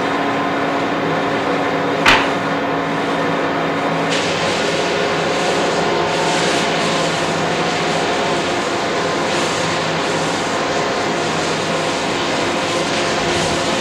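Electric belt sander running steadily, with a sharp click about two seconds in.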